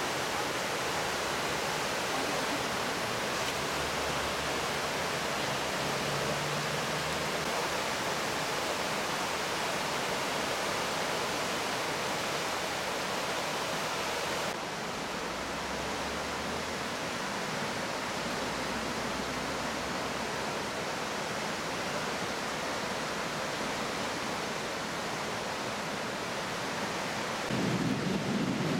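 Swollen, fast-flowing Danube floodwater rushing and churning past a moored pontoon and ship's hull: a steady, dense hiss of water. A low rumble joins in near the end.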